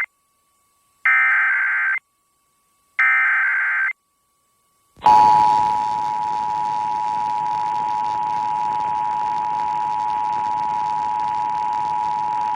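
Emergency Alert System signal: two short buzzy SAME digital header bursts two seconds apart, then, about five seconds in, the EAS two-tone attention signal (853 and 960 Hz sounding together) holding steady for about eight seconds over a hiss of radio noise. The tones announce that an emergency alert, here a required monthly test, is about to be read.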